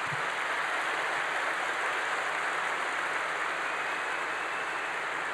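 Large audience applauding steadily: a dense, even wash of many hands clapping.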